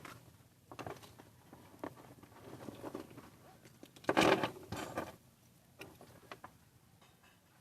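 Hands handling washing-machine parts and tools: scattered small clicks and knocks, with a louder scraping, rattling burst lasting about a second, starting about four seconds in.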